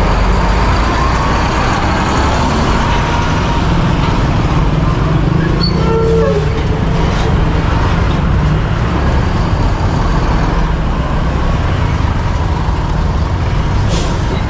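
Steady wind and road noise from a motorcycle ride in traffic, picked up by a camera tucked into the rider's shirt, with engine rumble and surrounding vehicles underneath. A brief high-pitched tone sounds about six seconds in.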